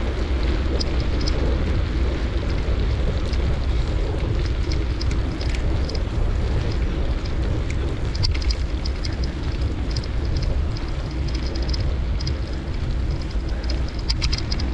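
Wind buffeting the microphone of a moving camera, a steady low rumble, over tyres hissing on a wet, slushy road, with scattered light ticks.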